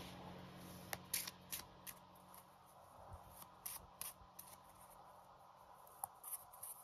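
A deck of playing cards being shuffled by hand, faint, with scattered soft clicks and flicks of the cards.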